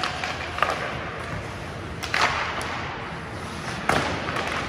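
Ice hockey play: sharp knocks of sticks and puck, echoing in the ice rink. The two loudest come about two seconds in and again near the end, with lighter knocks before them.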